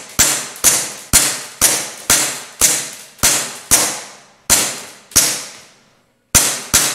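Taurus PT 24/7 G2 CO2 gas blowback airsoft pistol firing shot after shot, about two a second, each a sharp crack with the slide cycling, trailing off briefly in the room. A pause of about a second comes near the end before two more quick shots.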